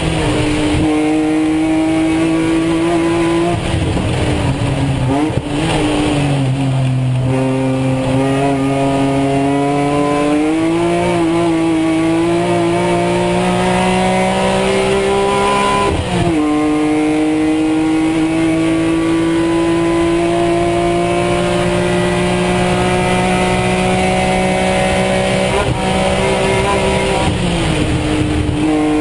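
In-cabin sound of a BMW Z4 M Coupe race car's 3.2-litre straight-six running hard at speed. The revs fall for a few seconds about four seconds in as the car slows, then climb steadily under throttle. An upshift at about sixteen seconds drops the pitch sharply before it climbs again, and the revs ease off near the end.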